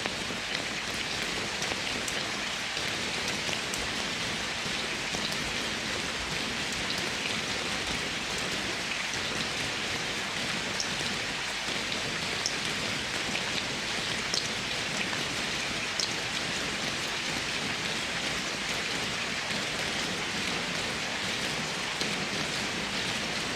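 Steady rain falling: an even hiss, with a few separate drops ticking here and there.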